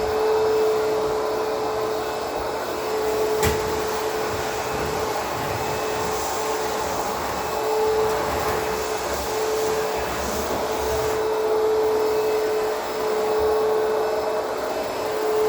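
Backpack vacuum cleaner running steadily, its motor giving a high, even whine over a rush of air, with a single sharp click about three and a half seconds in.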